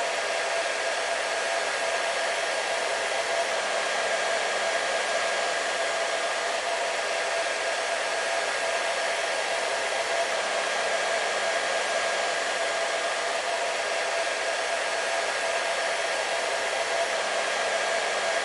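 Hair dryer running steadily, a constant blowing noise with a steady whine from its motor.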